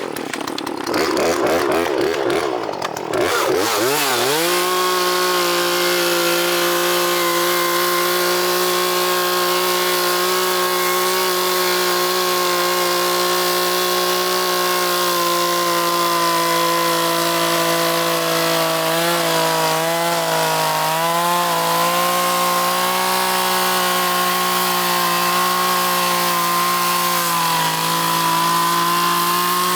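Poulan Pro PR4218 two-stroke chainsaw revving up over the first few seconds, then held at high, steady revs, as when ripping the rough edge off a slab-wood offcut. The pitch wavers briefly about two-thirds of the way through.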